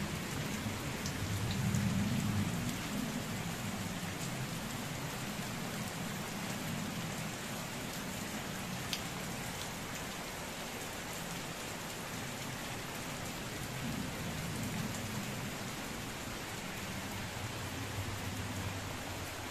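Heavy rain falling steadily on dense leaves and wet, muddy ground, with a low rumble that swells briefly about two seconds in.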